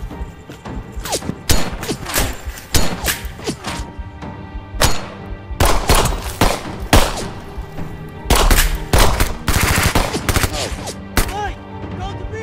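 Battle gunfire: many rifle shots in quick, irregular succession, with a dense volley about eight to ten seconds in, over a music score.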